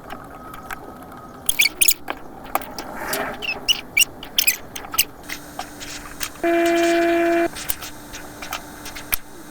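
Scattered sharp clicks and taps, then a vehicle horn sounding once for about a second, about six and a half seconds in.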